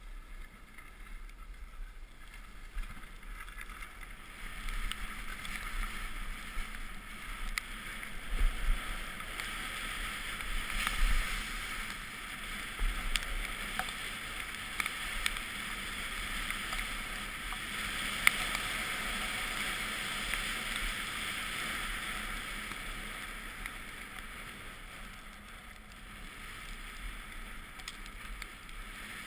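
Snow hissing and scraping under the camera wearer's edges while riding down a groomed piste. The hiss swells through the middle and eases off near the end, with a few sharp knocks along the way.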